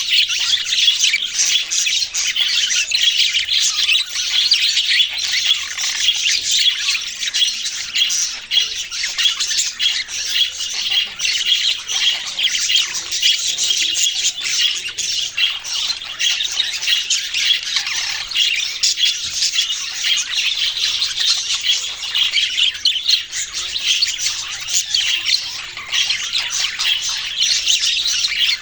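A flock of small pet parrots chirping and squawking nonstop, many calls overlapping into a dense, high-pitched chatter.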